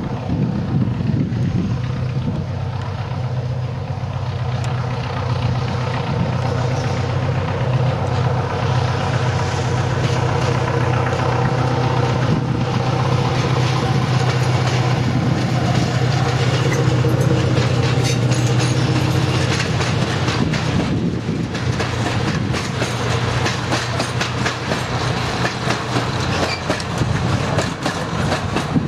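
Fablok SM42 diesel locomotive with its eight-cylinder diesel engine working under load as it approaches and passes with a freight train, a steady low drone that is strongest through the middle. In the latter part the open freight wagons roll by with rapid clicking wheels over the rail joints.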